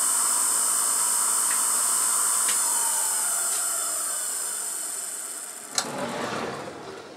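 Emco F1 CNC milling machine's spindle running with a steady high whine, then winding down with a falling pitch from about halfway through, as the machine stops after the spot-drilled holes to wait for the clamp to be repositioned. A sharp click near the end, followed by a short rustle.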